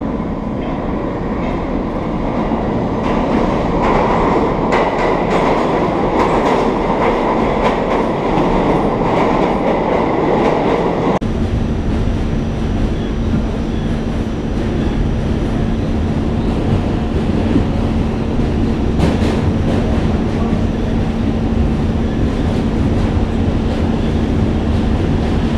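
New York City subway train noise: for the first eleven seconds or so, a train's loud running noise echoing in an underground station. It then changes abruptly to the steady rumble of a subway car heard from inside as it crosses a steel bridge, with a low steady hum.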